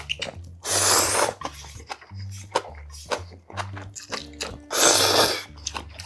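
Ramen noodles slurped loudly twice, once about a second in and again near the end, with short chewing clicks between. Background music with a steady bass line runs underneath.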